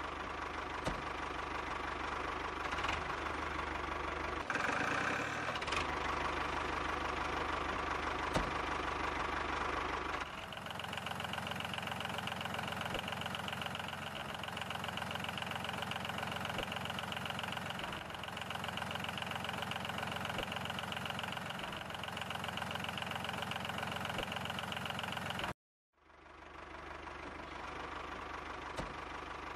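Tractor engine idling with a steady knocking beat. The engine sound changes abruptly about ten seconds in, cuts out completely for a moment near the end, then fades back in.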